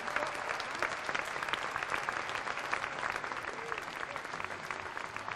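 Audience applauding, many hands clapping together and easing off slightly near the end.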